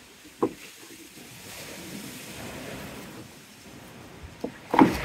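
Wind rushing on the microphone, with sharp knocks from the plastic trimmer-line spool being handled: one about half a second in, and two close together near the end, the last the loudest.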